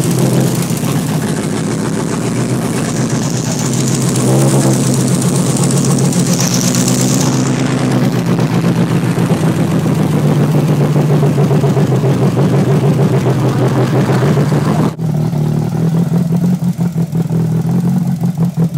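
VW Mk2 engine running after its first start in years, revved up and let back down a couple of times, with an abrupt change to steadier running near the end.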